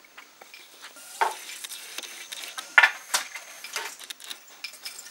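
Bamboo-and-wood frame handloom being worked: irregular wooden knocks and clicks, the sharpest knock a little before three seconds in, with others about a second in and near four seconds.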